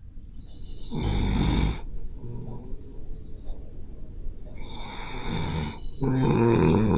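A person snoring in their sleep. There is a loud snore about a second in, a breathier one around five seconds, and a longer snore with a wavering pitch near the end.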